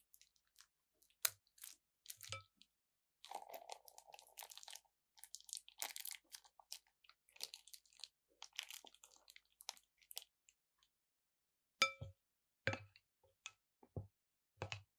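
Clear plastic piping bag crinkling and squelching as it is squeezed and emptied into a bowl of slime. About twelve seconds in, a spatula starts stirring, knocking against the glass bowl about five times, each knock with a short glassy ring.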